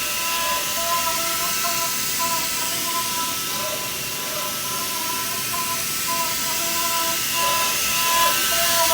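5-axis CNC milling machine cutting: several steady high tones that waver slightly, over a loud continuous hiss.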